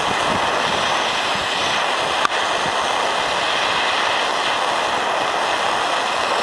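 Gas torch flame hissing steadily as it heats the corroded tip of a spark plug to burn off the rust, with a single short click about two seconds in.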